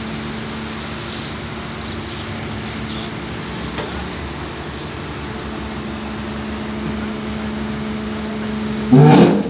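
Excavator diesel engine running steadily under load with a thin high hydraulic whine as its bucket levers a tractor trolley over. About nine seconds in, a short loud voice-like cry.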